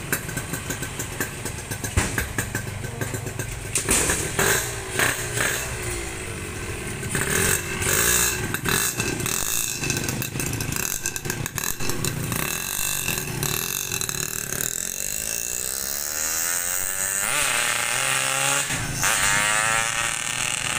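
Yamaha RX-King two-stroke single-cylinder motorcycle through an Altec C20RR aftermarket exhaust, revving and pulling away, then running up the road with its pitch rising and falling through the gears as it moves off.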